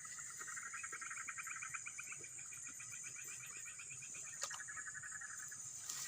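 Night chorus of frogs and insects: a fast pulsed trill that stops shortly before the end, over a steady high-pitched insect buzz. A single sharp click comes a little after the middle.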